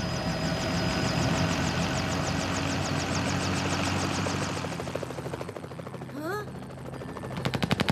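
Cartoon helicopter sound effect: a rotor chopping about seven or eight times a second over a steady engine drone. It swells, holds, and fades away after about four and a half seconds. Near the end come a short rising tone and the start of a rapid rattle of shots.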